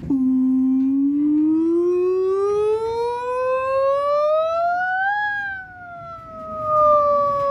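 A single wailing, siren-like tone that rises slowly for about five seconds, then falls gradually.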